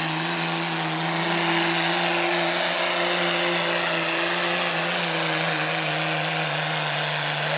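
Dodge pickup's turbocharged Cummins inline-six diesel at full throttle under pulling load, its note held steady with a loud rushing hiss above it. It falls off at the very end as the pull finishes.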